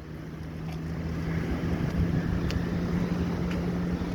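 Strong wind buffeting the microphone, a rough rumble that grows louder. A steady low hum runs under it and cuts off near the end.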